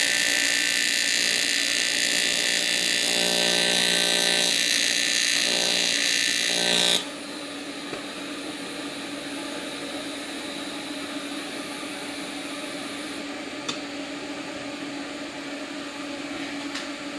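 AC TIG welding arc on 16-gauge aluminum tube, buzzing steadily at around 130 amps. It cuts off suddenly about seven seconds in, leaving a quieter steady hum and a couple of faint clicks near the end.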